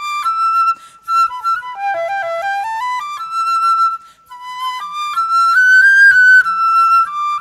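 Solo concert flute playing a melody of quick rising and falling runs of notes, with two short breaks about one and four seconds in.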